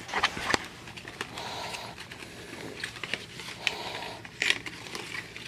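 Small cardboard gum boxes being handled and flipped through: scattered light clicks and taps of thin card, with soft rustling between them.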